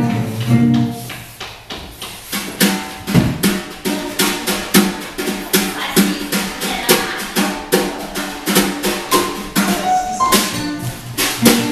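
Live band music: held notes at first, then a drum kit comes in about two and a half seconds in and keeps a steady beat under the pitched instruments.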